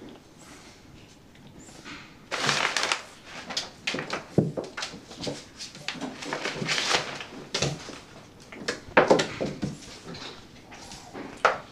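Kittens scuffling in an empty bathtub: paws scrabbling and sliding on the tub and rustling the plastic shower curtain, in irregular bursts starting about two seconds in.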